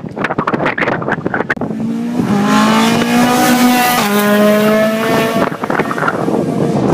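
Ford Escort Mk2 rally car's engine at high revs as it approaches and passes at speed. Its pitch climbs, drops sharply about four seconds in, then holds before fading. Wind buffets the microphone before the car arrives.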